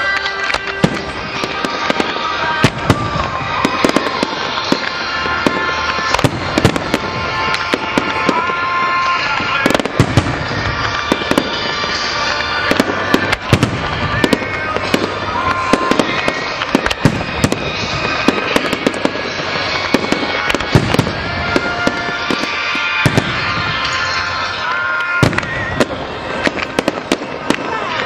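Aerial firework shells bursting in rapid succession, many sharp bangs one after another throughout, with music playing alongside.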